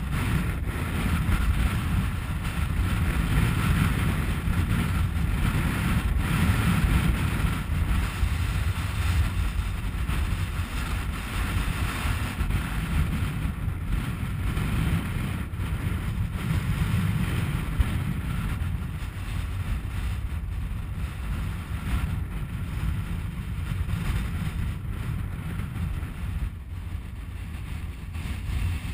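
Wind buffeting the camera's microphone: a dense low rumble that swells and eases with the gusts.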